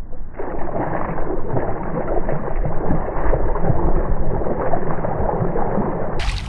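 Steady, muffled sloshing and splashing of water, with no clear highs.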